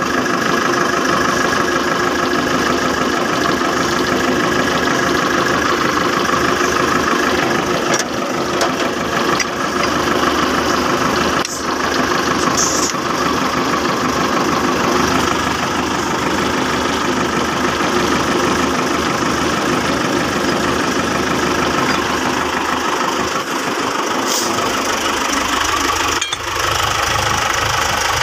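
Tractor diesel engine running steadily at idle, with a few short metallic clicks.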